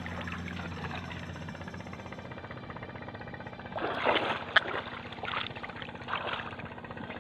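Sea water splashing as a swimmer strokes and kicks at the surface, a cluster of splashes about four seconds in and two smaller ones after, over a steady low background noise.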